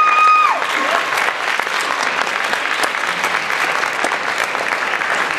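Theatre audience applauding steadily. A high held vocal note cuts off about half a second in.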